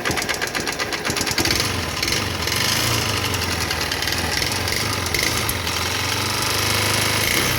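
Honda 160cc carburetted single-cylinder motorcycle engine running with a fast, hammering mechanical clatter, getting louder about a second and a half in. The mechanic puts the noise down to a seized, scored piston from running low on oil; the engine is also blowing white smoke.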